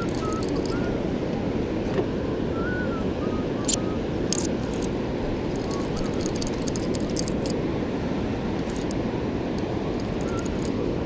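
Steady rush of the river's fast water flowing below a dam, with a few faint short chirps and scattered light ticks.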